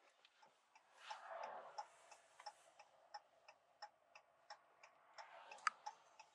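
Ram pickup's hazard-light flasher ticking evenly in the cab, about three clicks every two seconds, faint; the truck is stopped at the roadside with its hazards on. A soft rustle about a second in.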